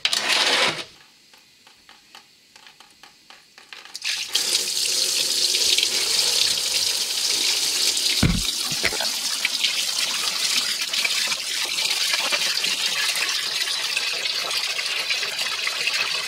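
Antifreeze pouring in a steady stream out of a Duramax pickup's radiator drain and splashing into a drain pan, starting about four seconds in after a short loud rush and a few faint clicks. A single dull thump about eight seconds in.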